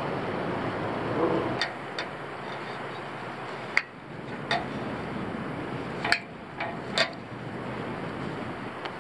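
About seven sharp metallic clicks and clinks, a few ringing briefly, as small metal fittings are handled against a hollow aluminium pole, over a steady hiss.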